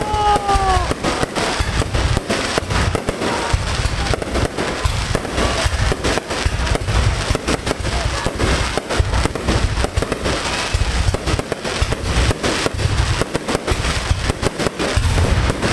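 Fireworks display: a dense, continuous run of bangs and crackling from aerial shells and firecrackers, with a low rumble underneath.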